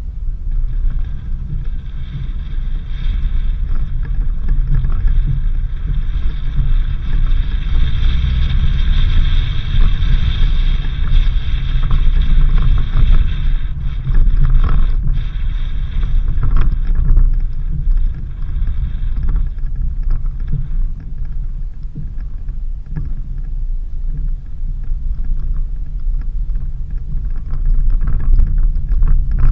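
Suzuki Jimny 4x4 driving on a dirt road: a steady low engine and road rumble, with a hiss above it that builds over the first ten seconds and dies away about twenty seconds in.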